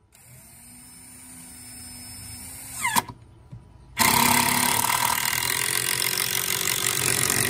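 Cordless drill running into the wooden bed frame in two bursts. The first, about three seconds long, grows steadily louder and ends in a sharp snap as the motor winds down. After a second's pause a second, louder and harsher run lasts nearly four seconds.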